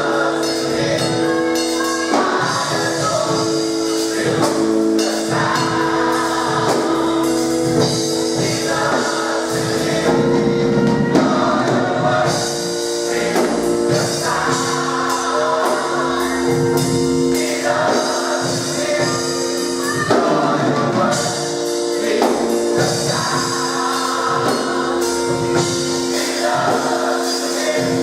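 Gospel mass choir singing with a band, drums and tambourine keeping the beat under sustained held chords.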